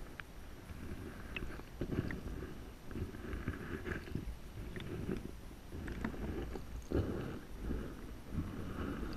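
Muffled underwater sloshing and rumbling of moving water around a submerged action camera, with a few faint clicks.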